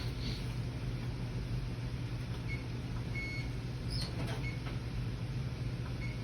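Electronic oven control panel beeping as the oven is set to 350 degrees: a few short high beeps, one held a little longer, over a steady low hum.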